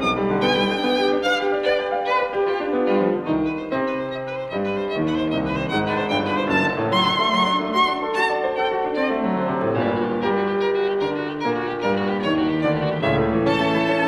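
Background instrumental music led by a violin playing a melody with vibrato.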